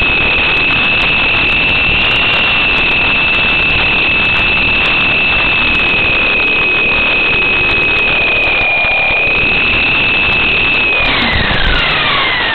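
Coaxial RC helicopter's electric motors and gears whining at a steady high pitch, heard close up through its onboard camera over a constant rush of rotor wash. About eleven seconds in the whine slides down in pitch as the motors spool down, and there is a thump as it comes down to the ground.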